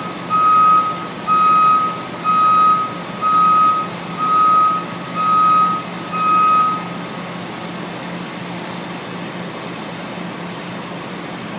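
Motion alarm of a Liebherr crawler crane beeping about once a second as the crane moves on its tracks, with the engine running steadily underneath. The beeping stops about seven seconds in, leaving only the engine running.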